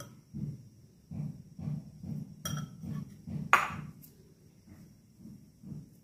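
Metal spoon scraping and clinking against a ceramic bowl of cauliflower filling, with two sharp ringing clinks, the louder one about three and a half seconds in. Soft low thumps recur about twice a second underneath.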